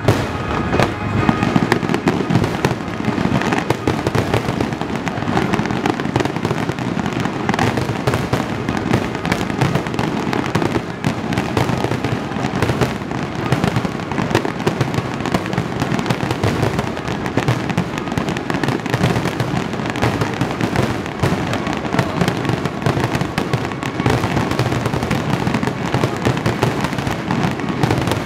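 Aerial fireworks display, many shells bursting and crackling in quick succession so the pops run together into a continuous loud crackle.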